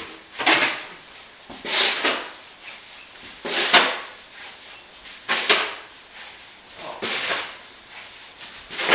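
Snow shovel scooping and scraping heavy snow in repeated strokes, about one every second and a half. Two strokes end in a sharp click.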